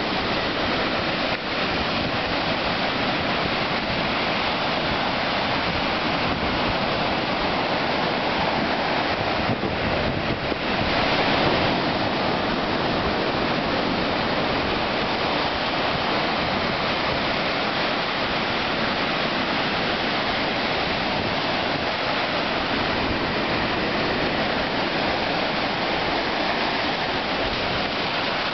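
Ocean surf breaking and washing up a sandy beach in a steady rush, a little louder about eleven seconds in.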